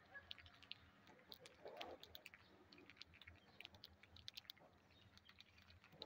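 Rose-ringed parakeets pecking at and cracking grain on a concrete floor: many small, irregular clicks and taps, with a brief duller sound near two seconds in.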